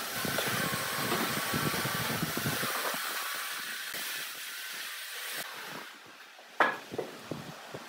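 An electric power tool's motor running steadily with a faint whine, cutting off about five and a half seconds in. A sharp knock follows, then a few lighter clicks, as of wood being handled.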